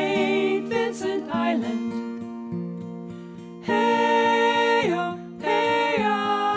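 Song with sung voices held on long notes over acoustic guitar and a steady plucked bass line.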